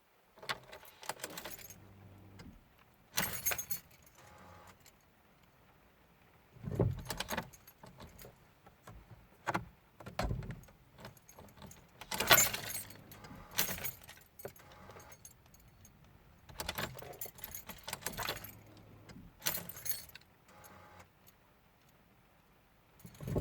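Keys jangling on the keyring as the ignition key of a 2003 Ford Fiesta 1.4 is turned again and again, in about nine separate goes. No starter motor cranking or engine is heard: the car fails to start, with the starter making no sound.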